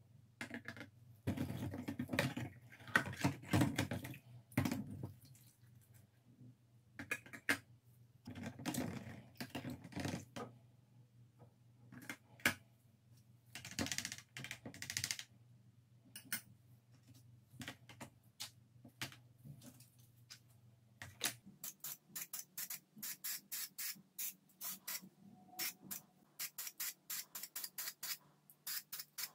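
Metal lamp-housing parts being moved and knocked about in a plastic tub of degreaser: liquid splashing and plastic clatter in irregular bursts. After a cut, an aerosol spray can hisses in short, quick bursts over parts hung in a cardboard spray booth.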